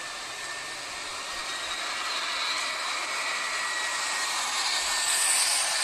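Airbus A330-900 airliner's Rolls-Royce Trent 7000 turbofans on final approach: a steady jet whine with a rushing hiss that grows steadily louder as the aircraft comes closer, turning brighter and hissier near the end.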